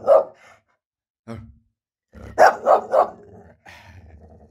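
English bull terrier alarm-barking at a noise outside: one bark at the start, a short softer one about a second in, then three quick loud barks about two and a half seconds in.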